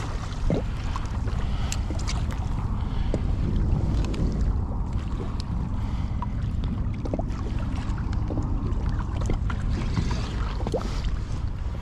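Wind buffeting the microphone over water lapping against a kayak hull on choppy open water, a steady low rumble with a few light clicks.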